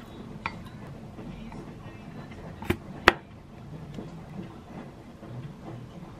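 Kitchen handling sounds as sauces are spooned into a glass mug: a few sharp clicks and taps of a wooden spoon and sauce bottles against the glass, the loudest two close together about three seconds in.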